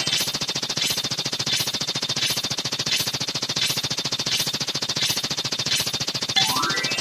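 Rapid machine-gun-fire sound effect: a fast, even rattle of shots with heavier accents about one and a half times a second. A short stepped rising tone sweeps up near the end as the loop starts over.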